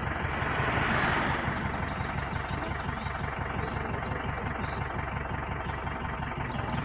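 Vehicle engine idling steadily, a low even rumble, with a brief swell of hiss about a second in.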